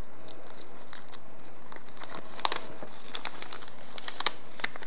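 Crinkling of small plastic and paper packaging being handled, with a few sharp light clicks of small parts and packaging.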